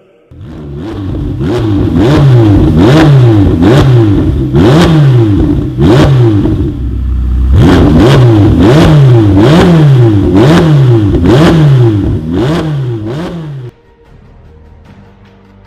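Ferrari 488 Pista Spider's twin-turbo V8 revved over and over, the pitch jumping up with each throttle stab and sliding back down, about once a second, with a short break midway. It cuts off sharply near the end, leaving faint music.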